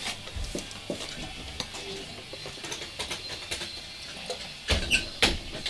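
Scattered light clicks and clinks of small objects being handled on a desk, with two louder knocks a little before the end.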